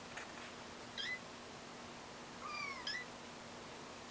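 Young kittens mewing: short high-pitched mews, one about a second in and two or three more close together near the end.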